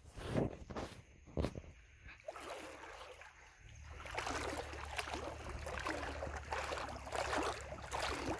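River water splashing and sloshing around a person wading waist-deep, with a few knocks in the first two seconds and a steady low rumble underneath from about four seconds in.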